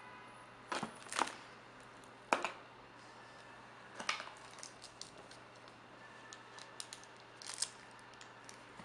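Small phone accessories and their packaging being handled: a dozen or so short clicks and rustles as cable, strap and plastic are lifted and set down, the loudest about a second and two and a half seconds in.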